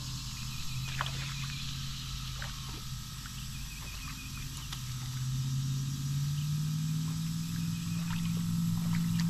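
A steady low motor hum that rises in pitch and gets louder about halfway through, over a high buzzing insect chorus, with a few faint clicks.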